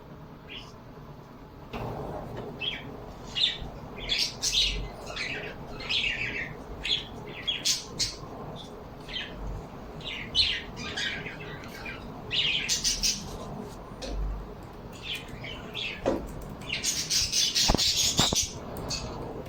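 Several birds chirping and squawking in many short, high calls, with a louder, harsher run of squawks near the end.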